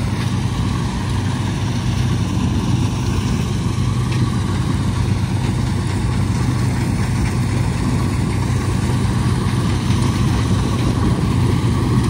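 Combine harvester running steadily as it cuts standing wheat: a continuous low engine hum at an even level.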